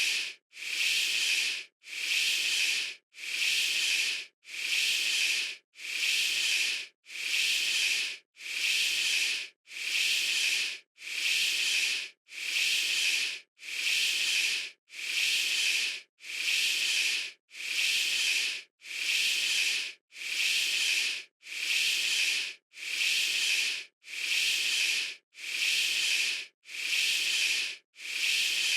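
A stock hissing sound effect, in bursts of about a second with short breaks between them, repeating evenly a little under every second and a half.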